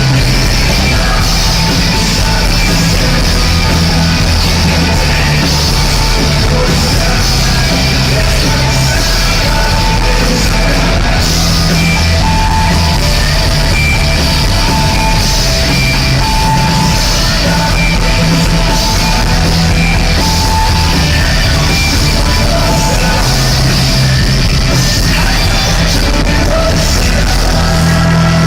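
A rock band playing loudly live in a concert arena.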